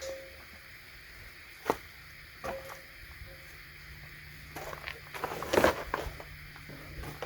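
Scattered handling noises: short clicks, knocks and rustling, with a sharp click just under two seconds in and a busier cluster of knocks and rustle past the halfway point.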